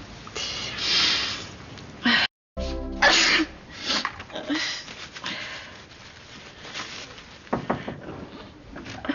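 A person sneezing, with a loud, sharp sneeze about three seconds in and smaller bursts around it, over background music.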